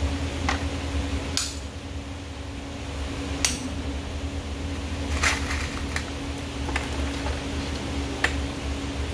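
Steel horseshoe being fitted to a horse's hoof: a few sharp, irregular metallic clinks and taps as it is set and positioned, over a steady low hum.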